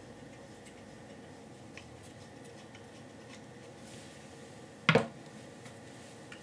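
Handling of a 3D-printed plastic microscope stage with its metal bolts and nuts: faint clicks, then a sharp double clack about five seconds in as the assembled stage is set down on the bench.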